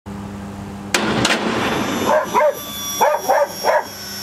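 A dog barking repeatedly, about six short barks in under two seconds, after a sharp bang about a second in. A steady low hum runs underneath.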